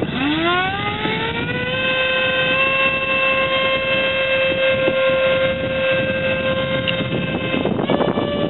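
Electric motor and propeller of a small RC plane spooling up, its whine rising over about two seconds and then held steady. Wind buffets the microphone, and near the end the pitch steps up slightly as the gusting gets rougher.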